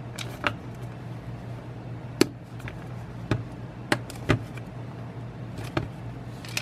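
Irregular small plastic clicks and taps, about ten of them, as fingers pry at and turn a ring on the barrel of a Canon 90-300mm zoom lens, over a low steady hum.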